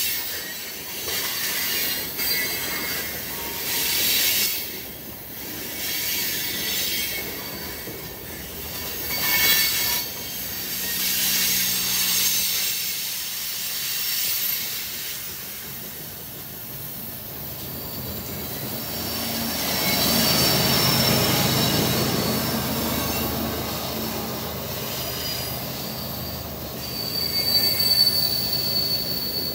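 Freight train rolling past, its car wheels squealing in thin high tones over the steady rumble of the cars on the rail. A mid-train diesel locomotive passes about two-thirds of the way through, adding a low engine drone.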